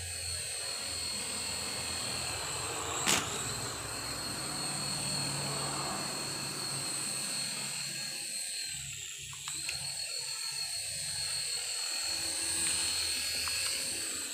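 Toy coaxial RC helicopter's small electric rotor motors whining steadily in flight, the pitch dipping briefly a little past the middle. There is a single sharp click about three seconds in.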